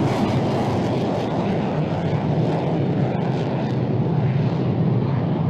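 Jet noise of an F-35 Lightning II's single Pratt & Whitney F135 turbofan at takeoff power as the fighter climbs away. It is a steady, deep rumble, and the hiss on top softens a little in the second half.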